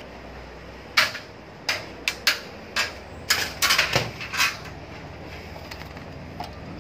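A thin metal screen-door track strip being handled and set against a metal door frame: a quick run of light metallic clinks and knocks, about eight of them, bunched between about one and four and a half seconds in.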